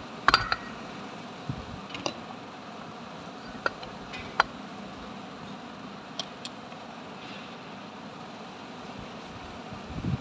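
Metal clinks and taps from tools against a truck starter motor's casing: one loud ringing clink right at the start, then a few single sharp taps spread out over the next several seconds, over a steady background hum.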